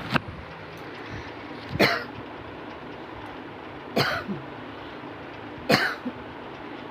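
A person coughing in single, sharp coughs: a light one at the start, then three louder ones about two seconds apart.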